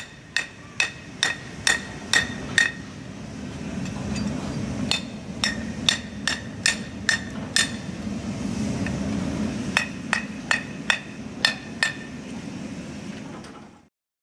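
Hammer striking a freshly sand-cast aluminium impeller held in pliers. Each blow rings, and they come in three runs of six or seven strikes, a little over two a second, over a steady low rumble. The sound cuts off suddenly near the end.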